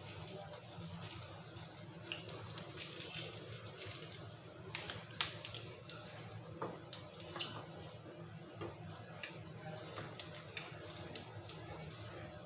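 Cassava patties frying in hot oil in a frying pan: a steady sizzle with many scattered sharp pops and crackles.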